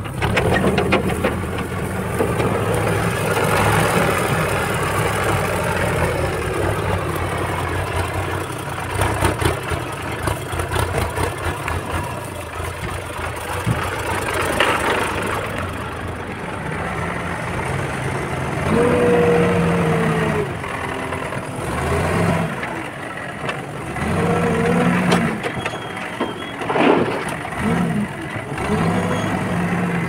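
Tractor's diesel engine running as it drives across a field pulling a trolley, a steady hum at first, its note rising and falling repeatedly in the second half.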